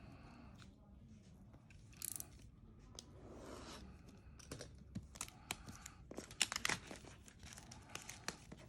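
Packaging of a keyboard box being handled and opened by hand: irregular tearing and crinkling with scattered sharp clicks, getting busier in the second half.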